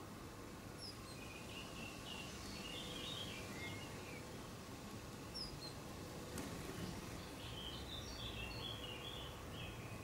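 Small garden birds twittering faintly: two clusters of short chirps, with a few thin high notes between them, over a steady outdoor background hiss. A single faint click comes about six seconds in.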